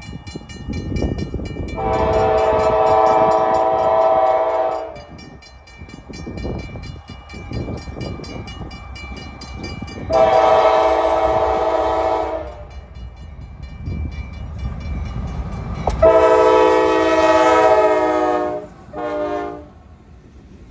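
Lead locomotive NS 4004's K5LA five-chime air horn blowing three long blasts and then a short one near the end, over the rumble of the approaching diesel train. A grade-crossing bell rings with quick, even strokes.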